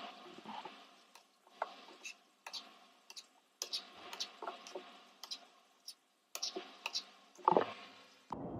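Kitchen knife slicing cherry tomatoes in half on a wooden cutting board: a run of sharp knocks as the blade hits the board, about two a second and unevenly spaced, with one louder knock near the end.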